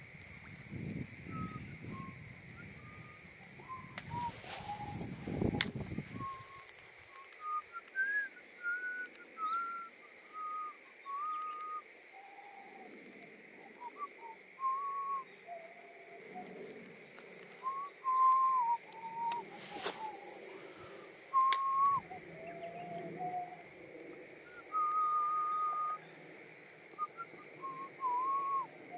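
A person whistling a slow tune, one held note after another, stepping up and down in pitch. In the first few seconds there is a low rumble and a couple of sharp clicks, and two more clicks come in the middle.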